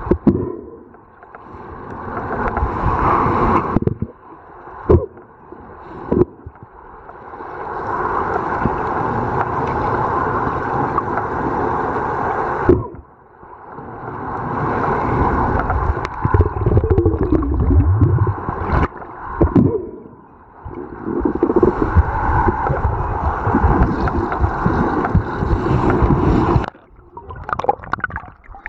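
Muffled underwater water noise heard through a submerged waterproof camera: a steady rushing gurgle that drops away briefly several times.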